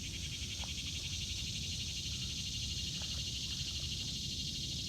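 Steady high-pitched insect chorus, a fast pulsing trill, with a low rumble underneath.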